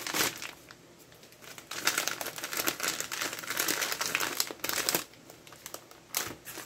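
A plastic mailer bag and the foil pouch inside it crinkling in uneven bursts as they are pulled open and handled, with a short lull about a second in and another near the end.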